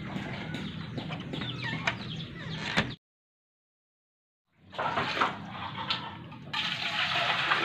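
Mixed background sound that cuts to dead silence for about a second and a half. Then water is poured from a plastic dipper into a pot, a splashing pour in the last second or so.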